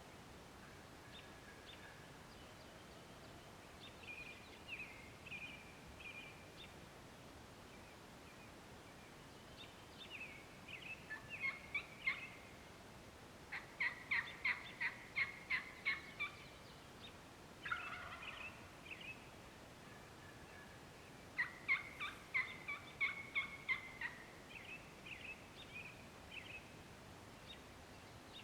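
Turkey calling: scattered soft notes, then three loud runs of rapid, evenly spaced notes, each two to three seconds long, about 11, 15 and 23 seconds in.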